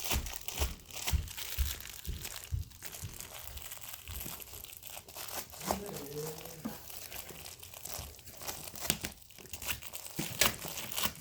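Crinkly pet toy being played with: irregular crinkling and crackling, with scattered sharp clicks.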